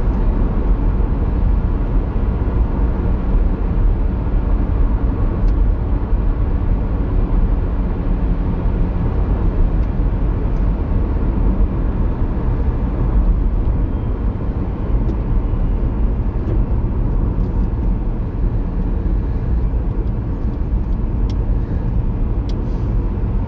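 Steady engine and tyre noise inside the cabin of a moving car, a low even rumble without change.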